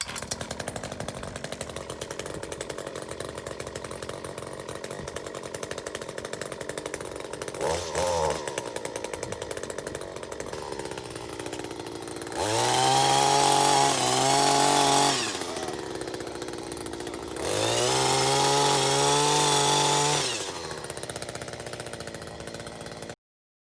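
Echo HC-2020 hedge trimmer's 21.2 cc two-stroke engine idling steadily, then revved up to full throttle twice, each time held for about three seconds before dropping back to idle. The sound cuts off suddenly near the end.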